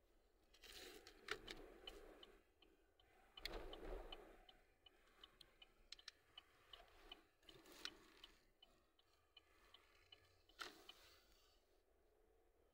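Faint, regular ticking about three times a second, typical of a car's turn-signal indicator clicking on and off. It starts about four seconds in and stops about ten seconds in, among louder rustles and bumps of the phone being handled.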